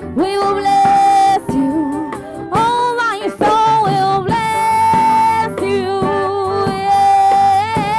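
Live worship band playing a song, with singers holding long, wavering notes over electric guitar and bass guitar.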